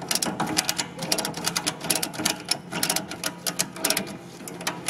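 Ratchet strap buckle being cranked tight, a quick, uneven run of metal pawl clicks as the strap is tensioned.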